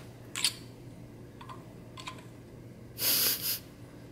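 A white plastic T-handle corkscrew being handled and taken apart, giving a few faint plastic clicks. A short hissing rush comes about three seconds in.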